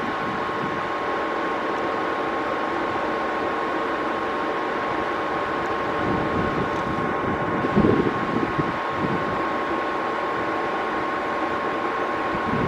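Airbus A220-300's Pratt & Whitney PW1500G turbofan engines running with a steady, high whine over a constant rush of engine noise. A short gust of wind hits the microphone about eight seconds in.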